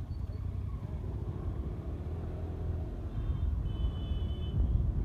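City street traffic heard from a moving scooter: a steady low rumble of engines and road noise, growing louder near the end, with a few brief high-pitched tones from about three seconds in.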